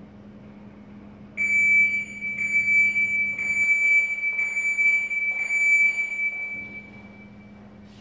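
MiR100 mobile robot's horn sounding a high-pitched electronic beep, about five beeps run together at one a second, then stopping.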